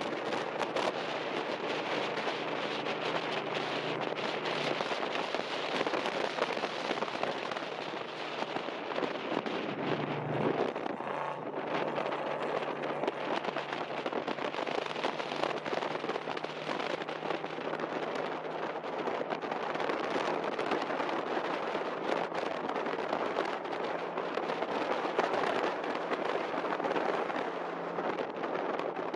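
Off-road race vehicle driving hard over a dirt course: a steady engine note under a dense, continuous crackling and rattling of gravel and rough ground.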